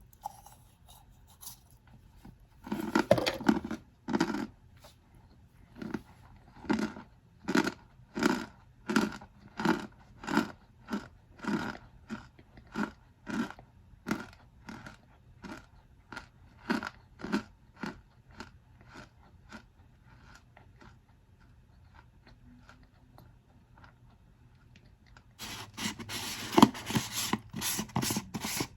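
Packed cornstarch crunching and squeaking as it is squeezed by hand. A dense crunch comes first, then a steady run of short crunches, somewhat under two a second, that slowly grow fainter. After a pause, a thick burst of crunching comes near the end.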